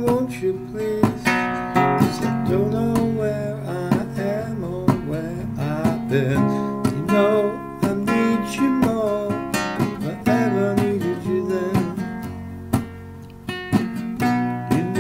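Acoustic guitar playing chords with a melody line moving over them, without singing.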